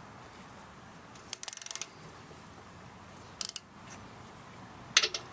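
Socket ratchet clicking in three short runs of quick clicks, the longest about a second in, as its handle is swung back while loosening the 12 mm brake caliper mounting bolts.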